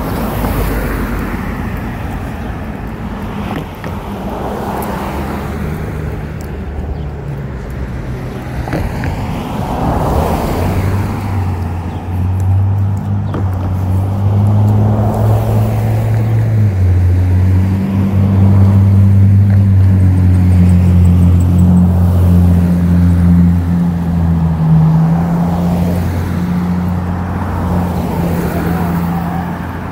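Street traffic: cars passing one after another, each swelling and fading. From about ten seconds in, a loud, deep low hum sets in and shifts between a few pitches.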